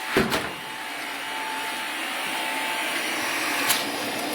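A hair dryer running steadily, blowing air into a coal forge fire, with a couple of sharp knocks just after the start and a click near the end.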